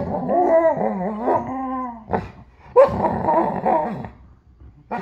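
Alaskan malamute 'talking': long, wavering vocal calls that mix a whine with a grumbling growl, one stretch of about two seconds and another of about a second near the middle, with a short yelp between them.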